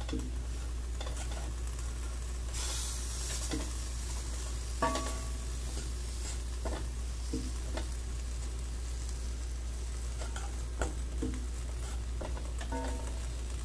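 A wooden spoon stirring a thick mix of corn kernels, flour and sugar in a stainless steel saucepan, with scattered knocks and clinks of the spoon against the pot. There is a steady low hum underneath.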